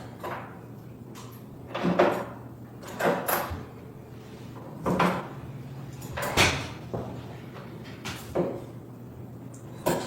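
A string of short, sharp knocks and clunks, about seven of them at irregular intervals a second or two apart, as of hard objects being handled.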